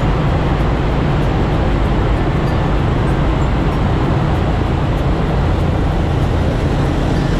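Steady rumble of a motorbike ride through a road tunnel, with the bike's engine, tyre noise and the surrounding motorbike and car traffic blended into one even, low-heavy roar.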